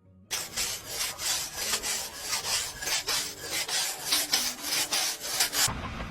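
Repeated rasping strokes, about three a second. They stop near the end, and a lower steady noise takes over.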